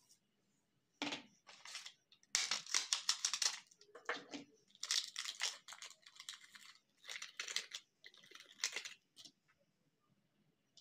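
Plastic film lid being torn and peeled off a plastic jelly candy cup, crinkling and crackling in a run of short bursts that goes quiet near the end.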